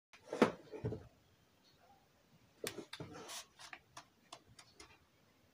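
Sharp plastic clicks and knocks, a couple in the first second and more about halfway, then a run of lighter ticks, as the fan heater is handled.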